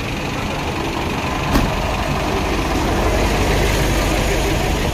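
Heavy diesel trucks moving slowly past at close range, their engines running at low revs. A short sharp knock comes about a second and a half in, after which the deep engine sound grows louder as a tanker truck goes by.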